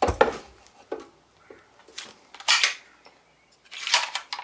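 Metal clinks and rattles of a stapler being handled and readied, with staples in it: a few separate knocks and short clatters, the loudest right at the start.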